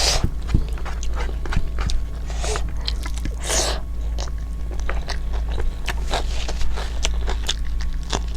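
Close-miked eating: chewing with frequent wet smacking clicks and a few longer smacking or slurping noises, over a steady low hum.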